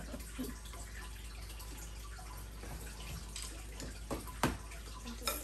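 Soft liquid sounds of noodle soup being eaten from ceramic bowls, with chopsticks and spoons clicking against the bowls a few times in the second half.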